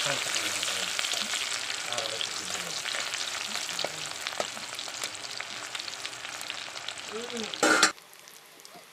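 Food frying in hot oil in a kadai, a steady sizzle with stirring that eases off slowly. Near the end there is a short loud clatter, and then the sizzle drops away suddenly.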